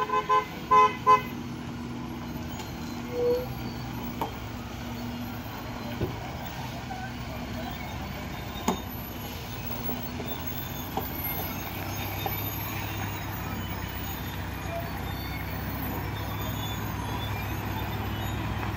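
A truck horn sounds in a quick run of about four short toots, then the low rumble of a heavily loaded truck's engine grows steadily louder as it comes down the road.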